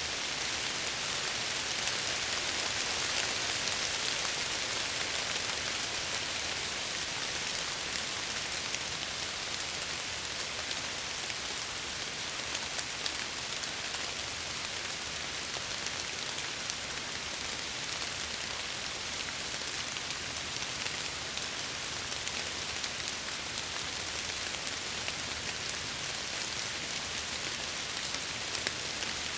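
Steady rain falling against window glass: an even hiss with scattered individual drop ticks.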